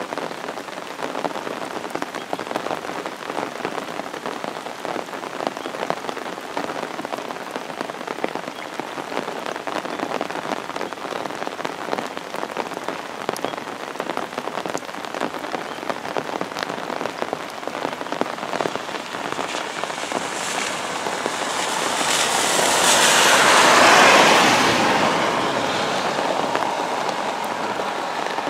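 Heavy rain falling steadily, a downpour of about 80 mm an hour. About twenty seconds in, a loud hiss swells, peaks and fades over several seconds.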